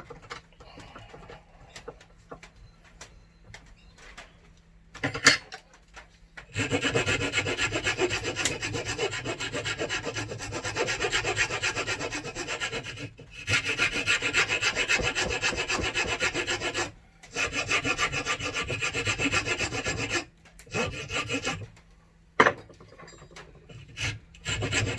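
A laminated plywood block being filed, with fast, continuous scraping strokes that start about six seconds in and stop briefly a few times. Before that there is only faint handling with a couple of knocks.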